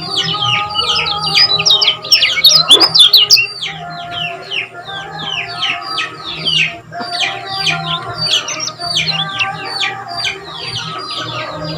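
Lemon-bellied white-eye (kecial kuning) singing in a fast, dense chatter of sharp falling chirps, about four a second, loudest a couple of seconds in. Lower held tones sit underneath.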